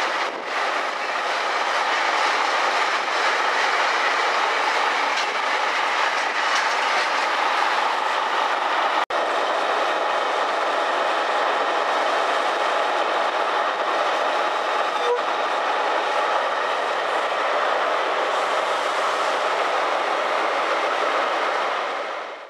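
Container freight train's wagons rolling past, a steady wheel-on-rail clatter, briefly cut off about nine seconds in.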